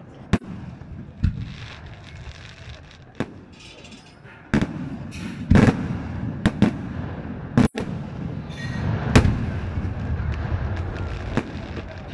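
Aerial fireworks shells bursting overhead: a string of about ten sharp bangs over a continuous low rumble, the loudest about halfway through and about nine seconds in.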